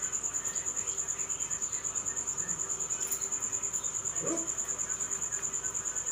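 A cricket trilling steadily in a high, fast pulse of about ten beats a second.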